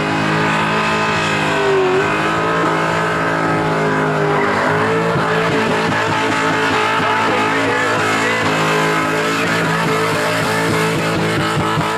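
Holden Commodore V8 held at high revs during a burnout, with tyres squealing as they spin. The engine note dips briefly about two seconds in, then holds steady.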